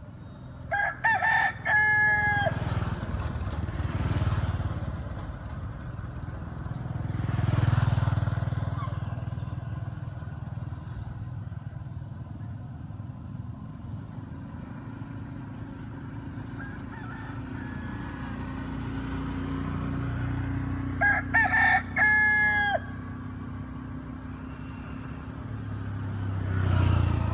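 A rooster crowing twice, once near the start and again about twenty seconds later, each crow a few broken notes ending in a held one. Traffic passes at times under a steady thin high whine.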